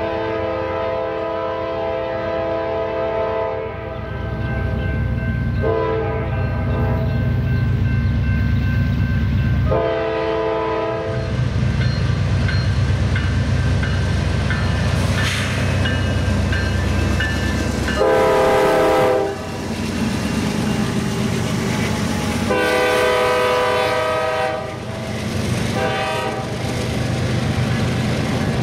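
Norfolk Southern diesel locomotive sounding its air horn about seven times in long and short blasts. Between the blasts the locomotive's engine rumbles steadily and the train runs on the rails.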